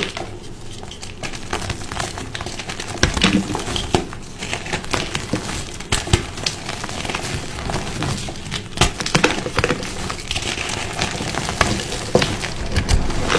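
Gym chalk being crushed: dry, crisp crunching and crackling, in irregular bursts with sharper snaps scattered through.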